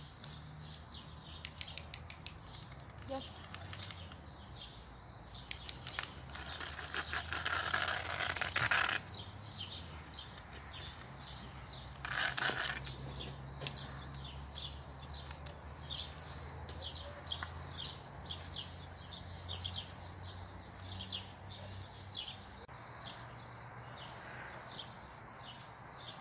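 Small birds chirping in quick, short, high notes repeated a few times a second, over a low steady rumble. A louder rushing noise rises for a few seconds about six seconds in, and a shorter one comes about twelve seconds in.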